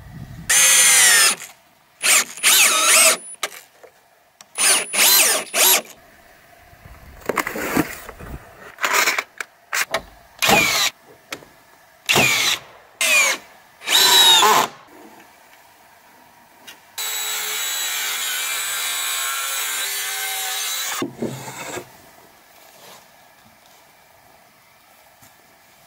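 HiKOKI cordless drill driving screws through plywood gusset plates into truss timbers: about a dozen short bursts of motor whine, each winding up and down in pitch. Later comes a steady rushing noise lasting about four seconds.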